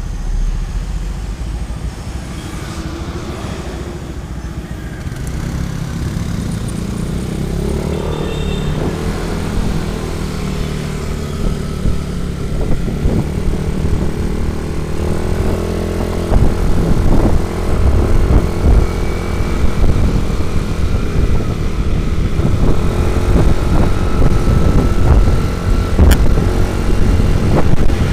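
Motorcycle engine running on the move, its pitch rising and falling with the throttle. It gets louder about halfway through.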